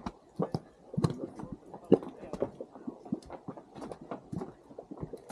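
Mudpot of thick, hot mud bubbling: irregular plops and bloops, several each second, with one louder plop about two seconds in.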